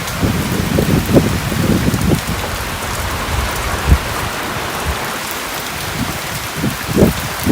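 Heavy monsoon rain falling steadily. Gusts of wind rumble on the microphone during the first two seconds and again near the end.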